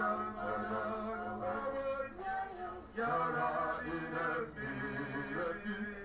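Hymn singing: voices, men's among them, holding long notes, with a brief break and a new phrase about three seconds in.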